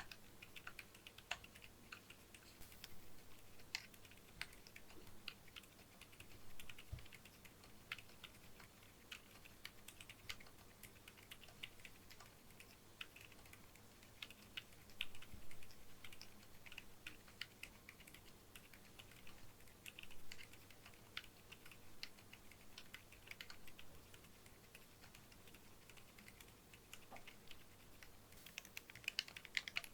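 Typing on a keyboard fitted with lubed Akko V3 Fairy Pro silent switches: a steady stream of faint, muffled keystrokes. In the last second or so the keystrokes become louder and sharper.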